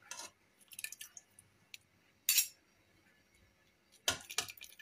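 Scattered clinks and scrapes of a metal spoon against a cooking pot and a glazed clay couscous dish: short, irregular knocks, the loudest about two seconds in and a cluster near the end.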